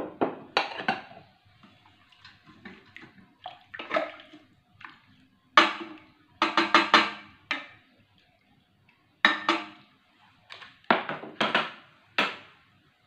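Wooden spoon stirring liquid in a rice cooker's metal inner pot: a series of sharp knocks and scrapes against the pot, some ringing briefly, in clusters with short pauses between.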